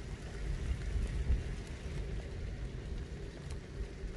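Light rain falling on an apple orchard, a steady hiss with faint scattered drop ticks, over a low, uneven rumble.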